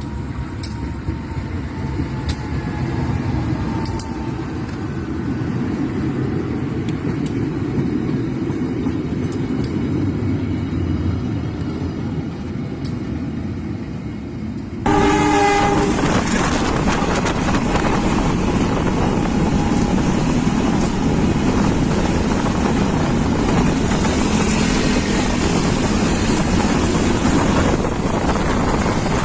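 Freight train running: a low rumble for the first half, then the sound jumps suddenly much louder about halfway, with a short horn note at the jump, and the loud noise of the train rolling past holds to the end.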